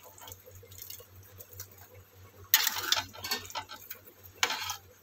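A spatula stirring watery rajma curry in a metal kadhai, scraping and knocking against the pan: light faint ticks at first, then louder scrapes about two and a half seconds in, again a little later and near the end.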